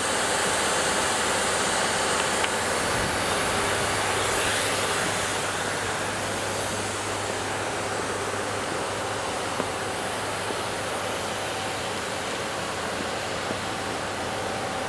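Steady rushing noise, a little louder for the first five seconds or so.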